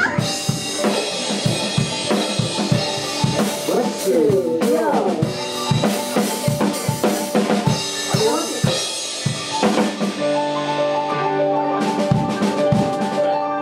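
Rock band music: a drum kit keeping a steady beat under sustained guitar and keyboard notes, with a voice coming in now and then.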